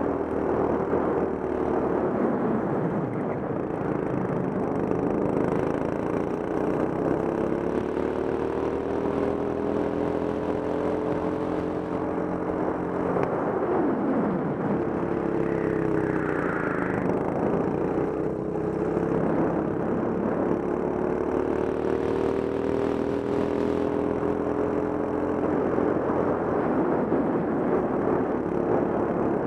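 Go-kart engine under load, its pitch climbing and falling again and again as the kart accelerates out of corners and slows into them, over a steady rumble of tyres and wind.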